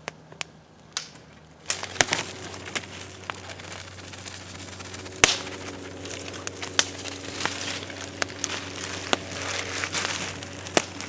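Clear plastic zip-top bags being handled, crinkling and rustling with many sharp crackles and clicks, starting about two seconds in.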